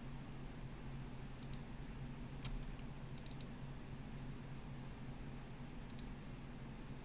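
A few sparse computer mouse clicks, mostly in quick pairs, over a low steady hum.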